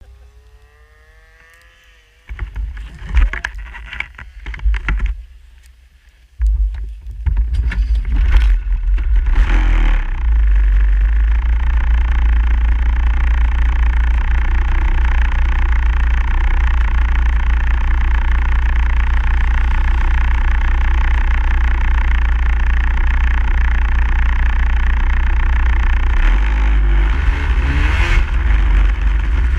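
A few scattered knocks and bumps, then from about six seconds in a snowmobile engine comes up and runs loud and steady at speed.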